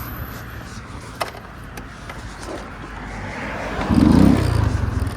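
Motor vehicle engine and road noise, a steady rumble that grows louder, with a loud engine note coming in abruptly about four seconds in.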